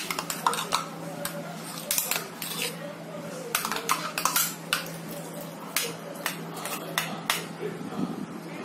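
A steel spoon clinking and scraping against a mixer-grinder jar, with quick sharp knocks in clusters, as ground coconut masala is stirred loose with water and tipped out into an aluminium kadai.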